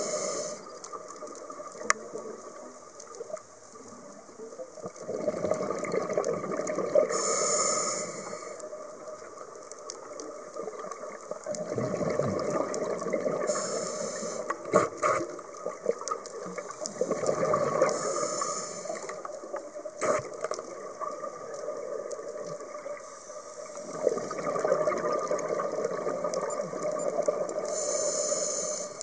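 Scuba diver breathing through a regulator underwater: short hissing inhalations alternating with longer gurgling rushes of exhaled bubbles, over several slow breaths.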